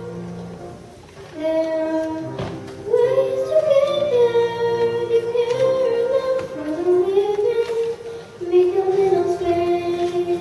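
A young girl singing a solo through a microphone, in sung phrases with long held notes, over a steady accompaniment. There is a brief pause about a second in before the next phrase.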